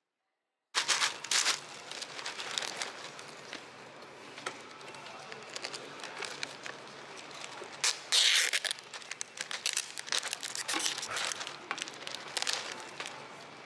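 Plastic film lid being peeled off a plastic cup of ice, with the crinkling of plastic packaging, starting just under a second in. A louder tearing rip comes about eight seconds in.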